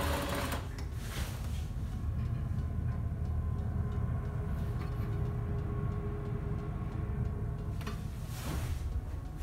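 Steady low rumble of a container ship's machinery, with a faint steady hum above it. A brief rush of noise comes near the start and again near the end.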